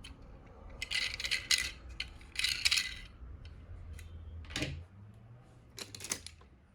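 Small die-cast metal toy cars clinking and rattling against each other as they are handled in a box: two bursts of clatter, then a few single clicks later on.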